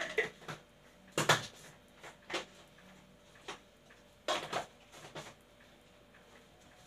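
A series of sharp knocks and clatters of kitchenware being handled, irregularly spaced, with the loudest clusters about a second in and again about four seconds in.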